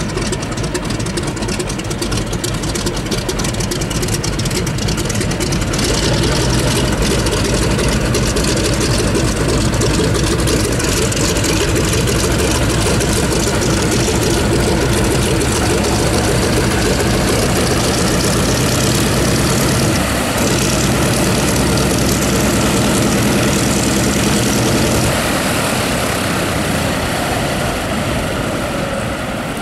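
P-47 Thunderbolt's big radial engine running at low taxi power, a steady propeller drone. It grows louder about six seconds in and eases off near the end.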